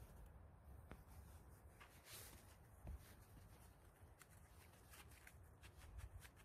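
Near silence with faint rustling and crackling of pine needles and soil as a gloved hand digs out and handles a matsutake mushroom.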